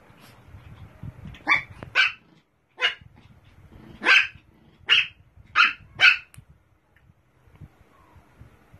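Pomeranian barking: seven short, high-pitched yaps over about five seconds, the later ones coming in quick succession.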